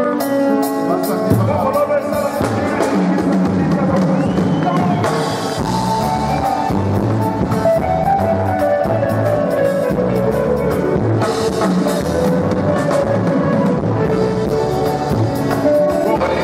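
Live band music: a drum kit and bass come in about a second in and play a steady dance beat, with guitar and other instruments on top.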